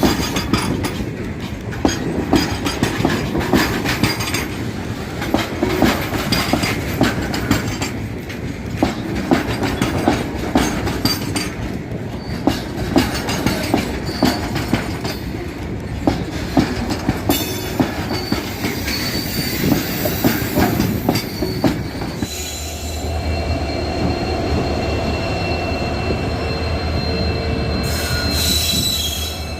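Diesel-hauled Indian Railways train running on track: dense, irregular clatter of wheels over rail joints and points. About 22 seconds in the sound changes abruptly to a steady low drone with a thin high whine.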